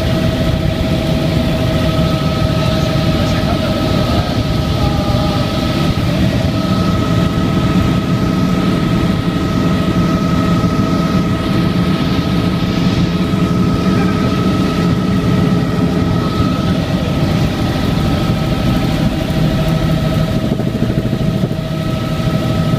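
Helicopter in flight heard from inside the cabin: a steady, loud engine and rotor drone with a constant high whine over a low rumble.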